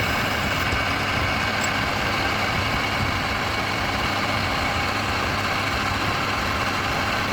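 A motor running steadily, an even mechanical drone with no change in speed.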